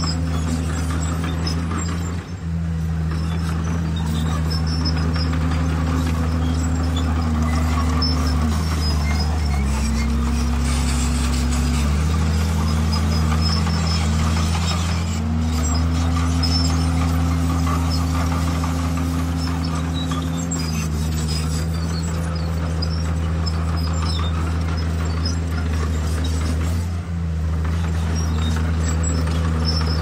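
Bulldozer's diesel engine running under load, its pitch dipping and recovering as the load changes. It goes deeper for a couple of seconds about a third of the way in, then wavers before steadying. Two very brief breaks in the sound come near the start and near the end.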